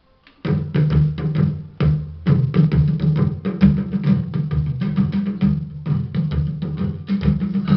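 Drum-heavy music with a strong bass line played through a pair of Visaton BG 20 8-inch full-range speakers, starting suddenly about half a second in.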